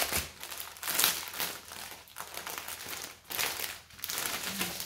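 Plastic packaging crinkling in irregular bursts as a wrapped strip of small plastic bags of diamond-painting drills is handled.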